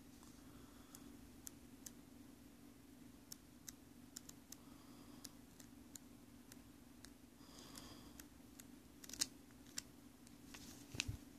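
Scattered small clicks and taps from handling the headphones and their packaging, with a louder clatter about nine seconds in and again near the end, over a faint steady hum.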